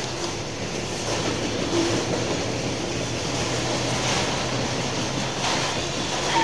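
Freight train of autorack cars rolling past: steel wheels running on the rails with a steady rolling noise.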